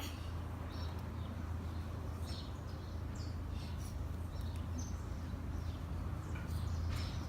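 Small birds chirping repeatedly in the background, short high notes falling in pitch, over a steady low hum.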